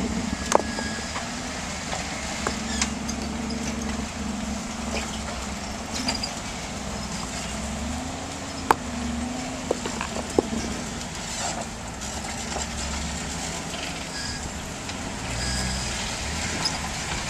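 Jeep CJ engine running at low revs while crawling over boulders, its pitch rising and falling a little as the throttle is worked. A few sharp knocks stand out, about half a second in and around the middle, typical of tyres and underbody meeting rock.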